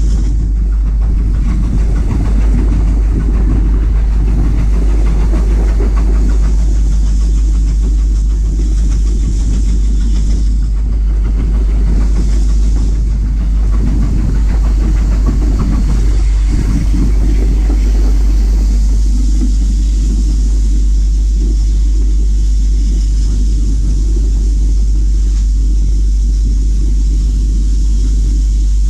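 Heritage train running along the line, heard from on board: a loud, steady low rumble.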